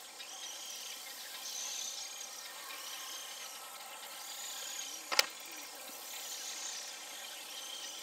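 Steady summer outdoor ambience of a high insect chorus, buzzing and wavering, with a single sharp click about five seconds in.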